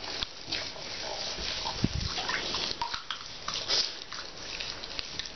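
Water splashing and dripping in a bathtub as a wet cat is washed by hand: small scattered splashes and drips, with a dull low bump about two seconds in.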